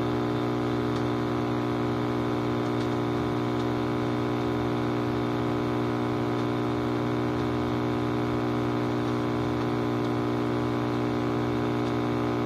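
GE all-tube AM clock radio putting out a steady buzzing hum with a hiss of static through its speaker: no station is coming in clearly on the weak evening AM band.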